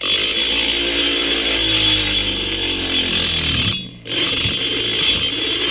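Rotary tool with a small round burr grinding in the corners of a chainsaw cylinder's lower transfer ports, run at low speed. Its pitch sinks over the first few seconds, then it stops briefly about four seconds in and starts again.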